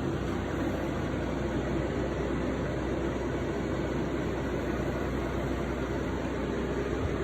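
VIVOSUN AeroWave E6 six-inch clip fan running steadily: an even rush of air with a low hum.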